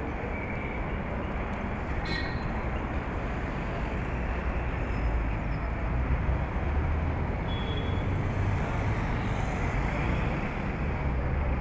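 Steady city traffic noise: a continuous rumble of passing vehicles that swells a little in the second half.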